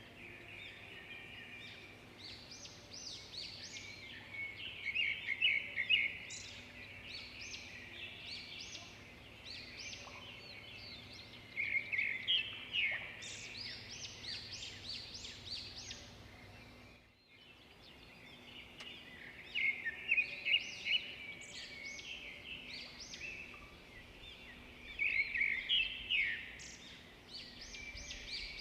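Songbirds singing: bursts of quick high chirps and trills every few seconds, with a brief break in the sound about two-thirds of the way through.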